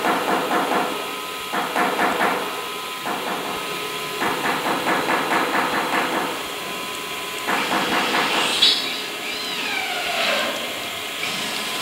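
CNC router gantry being jogged along its X and Y axes by its servo drives in several short moves, each move a run of rapid, even clattering from the axis drive. Near the end a whine sweeps down in pitch.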